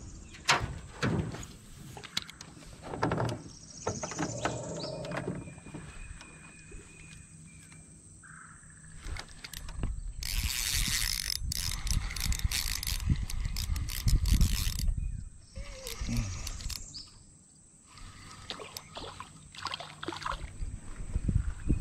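Handling noise in a small fishing boat: scattered clicks and knocks of rod and gear, with a few seconds of loud rubbing in the middle as a sleeve brushes over the camera. Near the end a hooked bluegill splashes at the water's surface.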